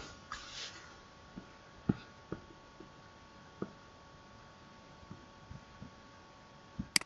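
Quiet room tone with a faint steady electrical hum, broken by a few soft knocks and a sharp click near the end.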